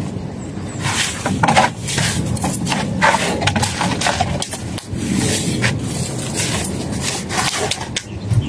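Masons' trowels scraping and spreading cement mortar across the tops of concrete hollow blocks, in short irregular strokes, over a steady low rumble.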